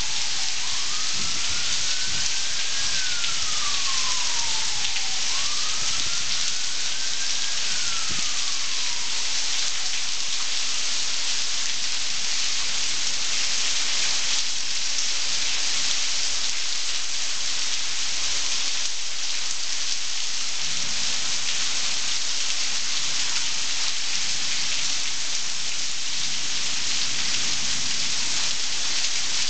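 Heavy tropical-storm rain pouring steadily, a dense, even hiss of drops on surfaces. In the first eight seconds a faint tone rises and then slowly falls, twice.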